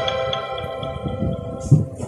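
The last notes of a marimba-style phone ringtone ringing out and fading away, with a short dull thump near the end.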